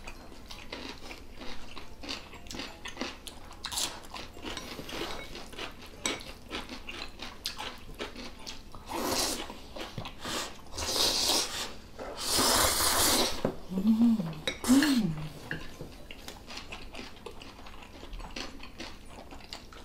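Close-up eating sounds: chewing, with small clicks of chopsticks and spoons against bowls and the pan. About halfway through come several loud slurps of Chapagetti black-bean-sauce noodles, followed by two short hums of voice.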